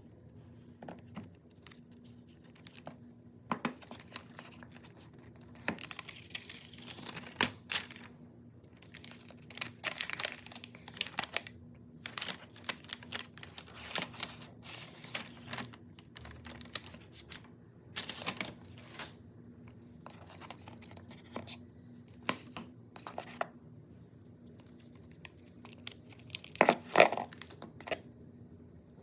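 Product packaging being opened by hand: irregular tearing and crinkling of paper and plastic wrap, with light clicks and knocks of the box being handled and a louder burst of handling near the end.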